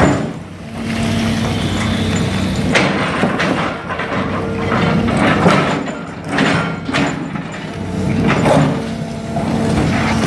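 Excavator engine running under load while its hydraulic crusher jaws bite into concrete slabs. A series of sharp cracks and crunches as the concrete breaks starts about three seconds in, with most of them in the middle of the stretch and one more near the end.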